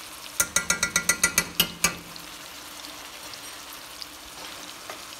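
A metal spoon tapped rapidly about ten times in a row, each tap ringing, knocking chili pepper paste off it. Underneath, meatballs and onions sizzle steadily in hot oil.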